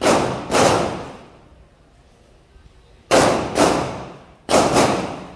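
An M16-style 5.56 mm rifle fired in single shots, paired about half a second apart: two near the start, two about three seconds in, and two more close together about four and a half seconds in. Each report is sharp and trails off.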